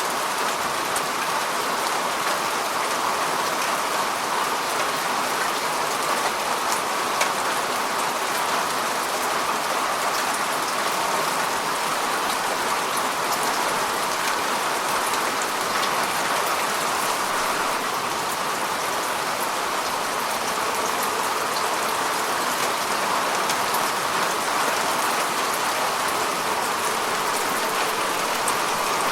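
Steady rainfall: an even hiss of rain with many small drop ticks, holding at a constant level throughout.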